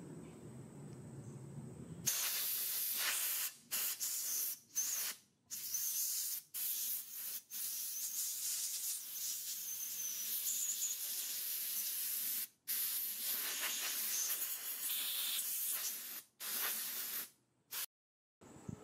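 Compressed air blowing through an air nozzle to dry a small-engine fuel tank: a high hiss that starts about two seconds in and comes in a string of bursts with short breaks as the trigger is pulled and released.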